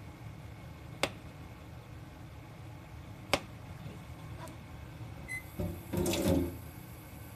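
Kitchen knife cutting through an avocado and tapping the plastic cutting board: two sharp taps about two seconds apart, then a second of louder rustling and handling as a sliced piece is picked up near the end.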